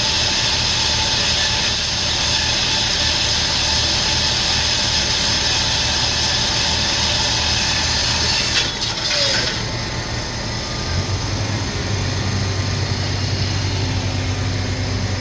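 Diamond wire saw cutting through a concrete column: a steady, loud hiss over the drone of the drive machinery. About nine seconds in, the cutting hiss drops away, leaving a lower, steady hum.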